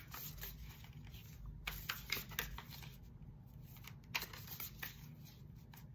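Oracle card deck being shuffled by hand: soft, irregular flicks and clicks of the cards.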